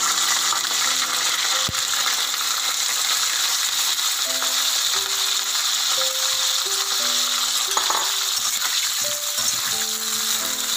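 Cauliflower florets frying in hot oil in a steel kadai: a loud, steady sizzle, with soft background music notes underneath.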